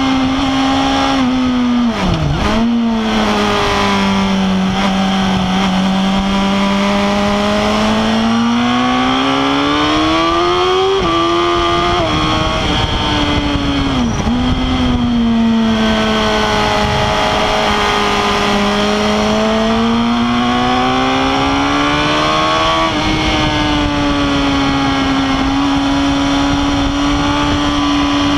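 Suzuki GSX-R1000 K8's inline-four engine heard from on board at speed, its pitch rising and falling with the throttle. The pitch drops sharply a few times and holds steady near the end, under a steady rush of wind.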